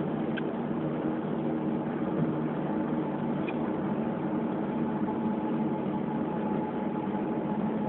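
Steady drone of a vehicle's engine and road noise heard from inside the moving vehicle, holding an even pitch throughout.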